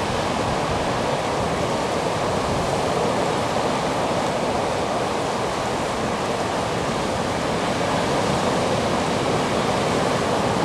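Choppy surf breaking along a beach: a steady, unbroken rush of water.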